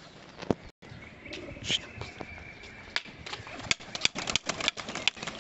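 Domestic high-flyer pigeons taking off, their wings flapping and clapping in a quick, irregular run of sharp claps that builds in the second half.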